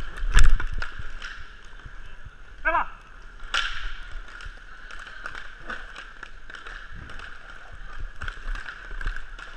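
Inline hockey play on a plastic tile floor: skate wheels rolling with sharp clacks of sticks and puck, the loudest about half a second in and another a few seconds later. There is a brief shout near three seconds.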